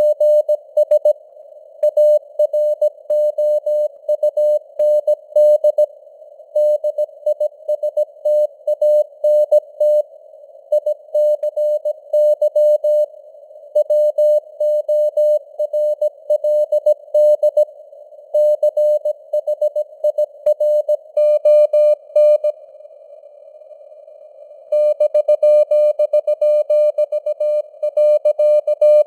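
Morse code (CW) sent at 17 words per minute: a single beeping tone of about 600 Hz keyed in dots and dashes over a band of simulated radio hiss. The sending pauses for about two seconds a little over three quarters of the way through, leaving only the hiss.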